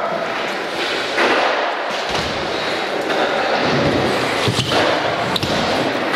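BMX bike riding on plywood skatepark ramps inside a large hall: the tyres roll and rumble, with several hard thuds of landings and wheel impacts.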